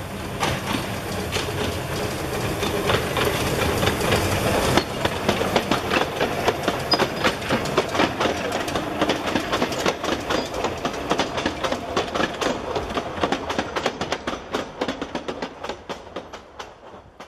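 A narrow-gauge steam train passing close by: the locomotive goes by first, then the carriage wheels click steadily over the rail joints, fading away near the end.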